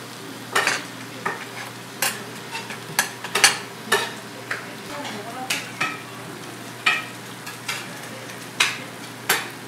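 Spicy stir-fried chicken with a melted cheese topping sizzling in a pan, a steady low sizzle broken by sharp clicks and pops at irregular intervals, roughly one or two a second.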